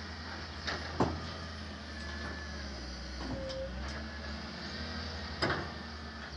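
Wheel loader's diesel engine running steadily with a low hum, with a few sharp knocks, two about a second in and one near the end.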